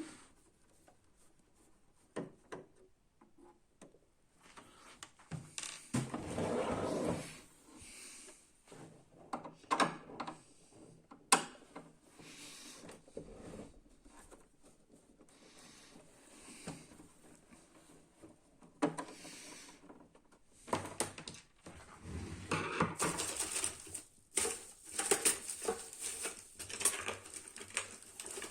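Screws being undone at the back of a laser printer and its plastic housing handled: irregular clicks, scrapes and rattles, with a busier stretch of scraping and rattling near the end.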